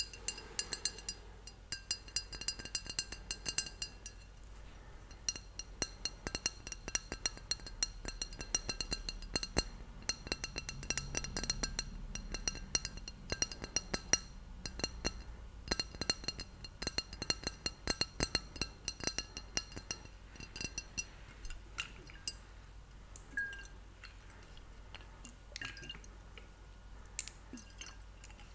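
Fingers tapping rapidly on a glass bottle of brandy, each tap a small click with a faint glassy ring after it. The taps thin out to a few scattered ones after about twenty seconds.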